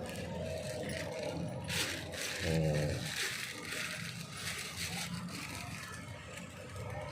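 Packaging being handled and opened: irregular rustling and scraping, with a short pitched sound about two and a half seconds in.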